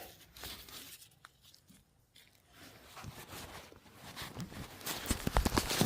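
Faint handling noise: scattered light clicks and knocks, nearly silent around the middle, then busier and louder near the end.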